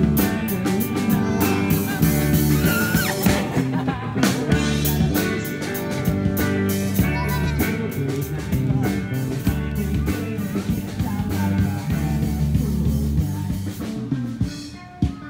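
Rock music with guitar, drums and singing, dropping away near the end.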